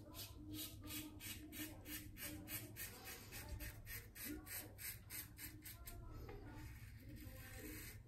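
Karve CB safety razor scraping lathered stubble off the neck in short, quick strokes, a faint rasping at about four strokes a second.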